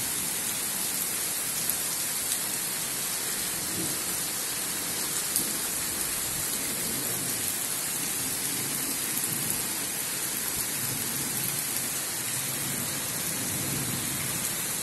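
Heavy rain pouring steadily, an even hiss, with a few sharp louder drops. A faint low rumble of thunder begins near the end.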